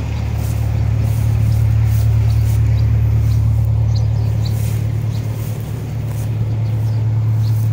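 Steady low engine hum, like a motor idling, with a few faint short high chirps here and there.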